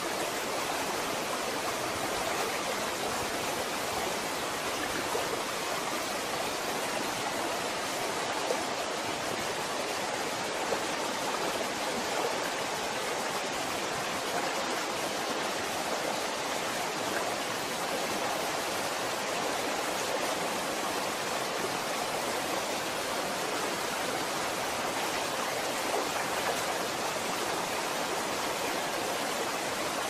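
Water running down an indoor artificial waterfall column into its pool: a steady, even rush of falling water with no breaks.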